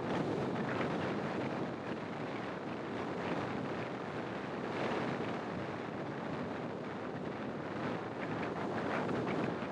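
Wind rushing over the microphone of a camera mounted outside a moving car, mixed with road and traffic noise: a steady, unbroken rush.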